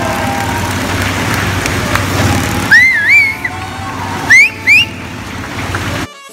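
Motorcycle engine running steadily as it circles the wooden wall of a Wall of Death drum. Loud, shrill rising whistles come about three seconds in and twice more at around four and a half seconds. The sound cuts abruptly to music just before the end.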